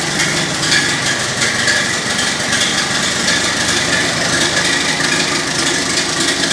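Buda engine of a 1918 Turner Simplicity 14-28 tractor running steadily on its first start after being rebuilt.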